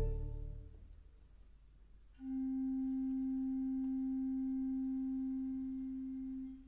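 A full chord from choir and organ ends and dies away in the hall's reverberation within the first second. About two seconds in, the pipe organ sounds a single pure, flute-like note around middle C, held steady for about four seconds until it stops near the end.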